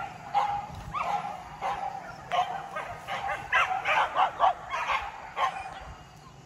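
Hunting dogs yelping and barking in short, repeated cries, thickest and overlapping in the middle stretch.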